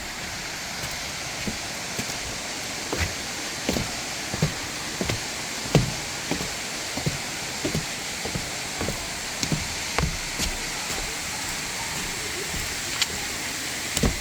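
Steady rush of rain and falling water, with heavy drops tapping irregularly close to the microphone, a few times a second.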